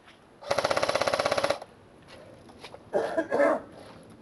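Airsoft electric rifle firing one full-auto burst of about twenty rapid shots, a bit over a second long, with a fast even mechanical rattle.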